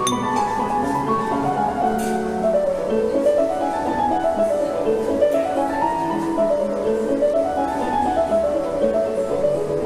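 Background music: a melodic piece played on piano or keyboard, with runs of notes that fall and rise again every couple of seconds.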